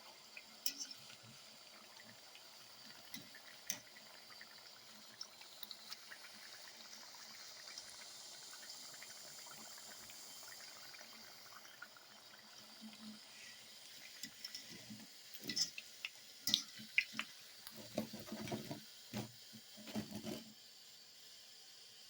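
Faint kitchen sounds: water from a tap at a sink under scattered small clicks, with a busier run of knocks and clatter from about 15 to 20 seconds in.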